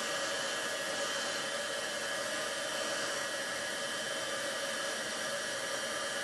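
Handheld embossing heat tool running steadily, a blowing hiss with a steady hum, as it heats embossing powder on stamped cardstock to melt it.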